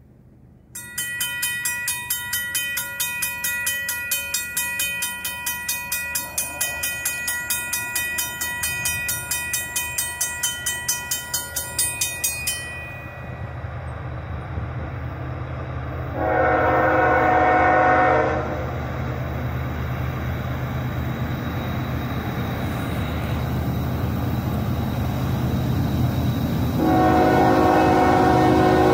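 Railroad crossing bell ringing rapidly for about twelve seconds. Then a Norfolk Southern diesel locomotive's air horn sounds two long blasts, the second starting near the end, over the growing rumble of the approaching train.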